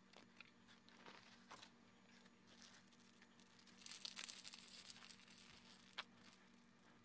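Whipped cream being squeezed out onto the top of a cake: a soft, rustling hiss for a few seconds with small clicks, ending in a sharp click.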